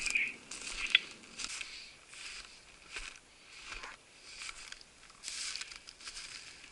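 Footsteps crunching through snow at a steady walking pace, about one step every three-quarters of a second, with a sharp click about a second in.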